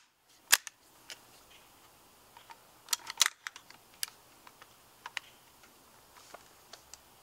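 Scattered sharp metal clicks and clacks from handling a WE PMC AK gas blowback airsoft rifle: a strong click about half a second in, a quick cluster around three seconds in, and lighter ticks after.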